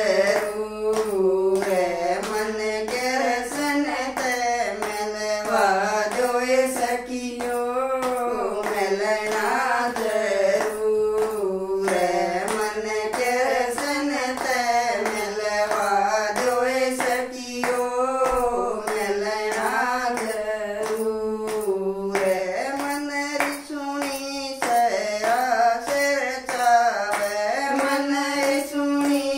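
Two women singing a Haryanvi devotional bhajan to Krishna, clapping their hands in a steady rhythm as they sing.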